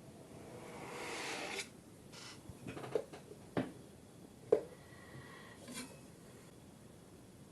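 Kinetic sand being scraped and rubbed with a rasping sound for about a second and a half. A few light, sharp knocks follow, about a second apart, as the sand block is worked into shape.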